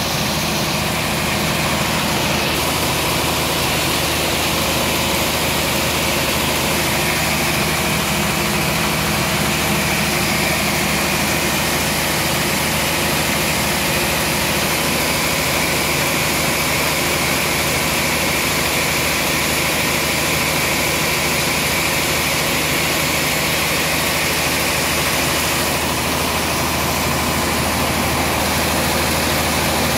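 Band sawmill running steadily, its motor and blade giving a constant hum and a noisy whir with no breaks.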